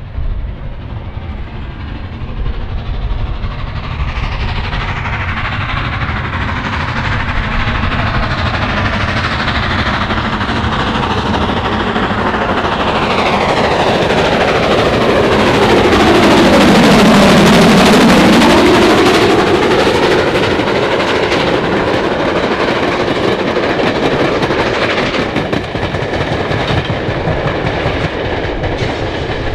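Steam locomotive hauling a train of coaches running past. It grows louder to a peak a little past the middle as it goes by, then stays loud as the coaches follow.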